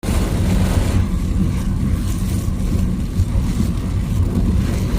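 A car driving on the road: steady low engine and road rumble with a hiss over it.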